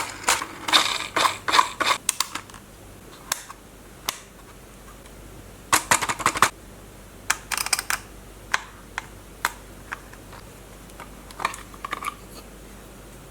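Irregular sharp clicks and light clatter of hard objects being handled, coming in clusters with quiet gaps between them over a faint steady hiss.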